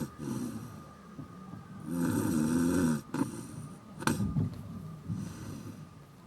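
A drunk man snoring in separate breaths, the longest and loudest about two seconds in, with a short sharp click about four seconds in.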